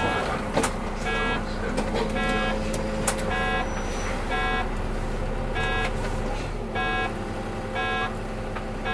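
Electronic beeper on a Solaris Urbino 8.9LE city bus sounding a short beep about once a second over the steady hum of the bus's running engine, with a couple of clicks in the first few seconds.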